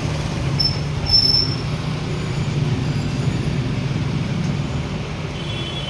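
Steady low rumble of road traffic, with two short high-pitched squeals about a second in.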